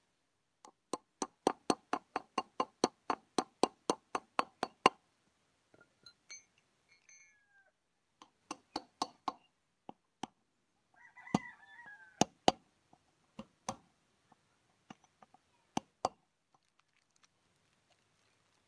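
Hammer blows on a steel drift set in a Swaraj 744 FE tractor's front wheel hub, working the wheel bearing's race: a fast, even run of about four sharp metal blows a second for some four seconds, then slower, scattered blows. A short animal call, falling in pitch, is heard about halfway through.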